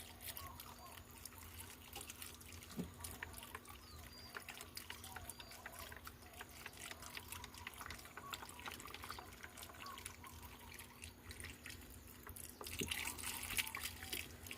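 Beef broth being poured into a stew pot of beef and vegetables: liquid trickling with many small drips, growing louder and noisier for a second or two near the end.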